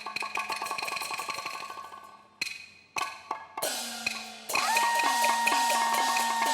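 Traditional Taiwanese opera-style percussion ensemble: a fast roll of wood block and drum strokes with gongs, which thins to a few single strikes midway. About four and a half seconds in, a loud held melody line enters over regular gong strokes whose pitch drops after each hit.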